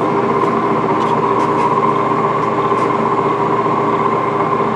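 Monarch engine lathe running with its spindle geared to 255 rpm in the high range: a steady machine hum through the headstock gearing, with a constant gear whine in two pitches.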